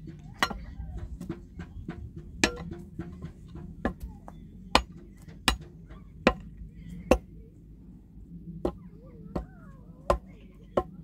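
Repeated sharp chopping or striking blows, roughly one a second, with a short pause before they resume.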